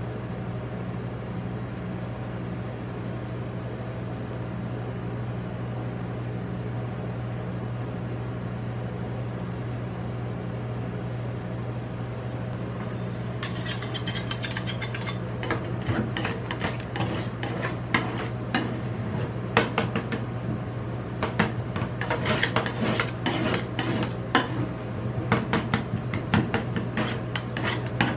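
Metal spatulas scraping and tapping on a rolled-ice-cream cold plate, chopping and spreading the mix, starting about halfway in and growing busier toward the end. A steady low hum runs underneath throughout.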